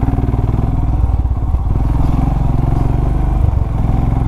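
Motorcycle engine running at low speed in slow traffic, a steady low pulsing beat.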